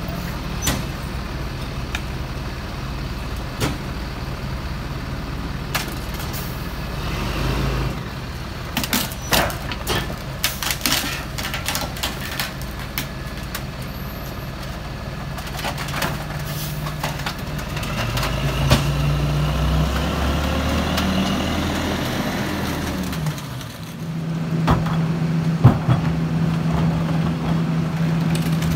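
Freightliner M2 McNeilus rear-load garbage truck's diesel engine running, with bags and trash knocking and clattering as they go into the hopper. In the second half the engine revs up and runs louder and higher.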